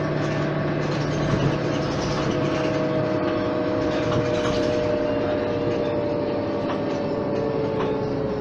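Mercedes-Benz O 530 Citaro city bus under way, heard from inside the passenger cabin: the OM 906 hLA six-cylinder diesel and ZF Ecomat automatic driveline running, with road noise. A whine falls slowly in pitch throughout, and a low hum drops away about three seconds in.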